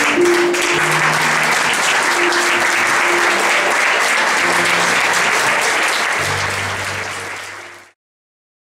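Audience applauding over music with held low notes; both fade out to silence near the end.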